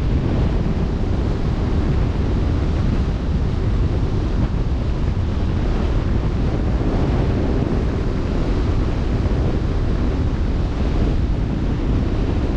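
Wind buffeting the microphone over the steady wash of open-sea waves, heaviest in the low rumble, with no distinct events.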